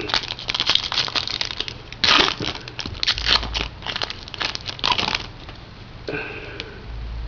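Trading-card pack wrapper crinkling and crackling as it is torn open and the cards are handled, in a dense run of crackles that thins out about five seconds in.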